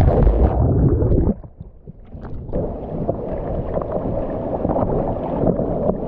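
River water sloshing and gurgling close to the microphone, loudest for the first second, dropping suddenly just after a second in, then a steady rush with small splashes.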